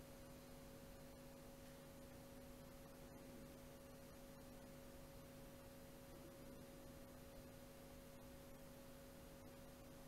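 Near silence: a faint, steady electrical hum from the loudspeaker system, a few held tones over low background noise.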